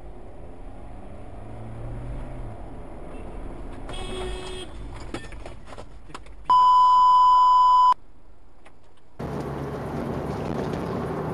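Car engine and road noise heard from inside a moving car. About six and a half seconds in, a loud, steady, high beep tone sounds for about a second and a half and cuts off sharply. Near nine seconds the road noise jumps louder.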